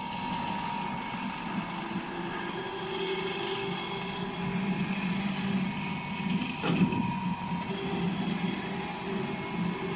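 Rotex wood chipper knife sharpening machine running, a steady machine hum with a single short knock about two-thirds of the way through.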